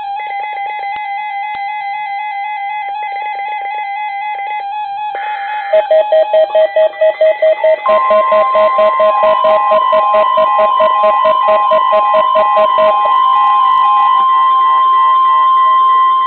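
Several NOAA weather radio receivers alerting at once for a Required Weekly Test, with overlapping electronic beeps and warbling chirps. About six seconds in a fast-pulsing beep joins, about four a second. About eight seconds in the steady 1050 Hz weather-radio warning tone starts and holds until near the end.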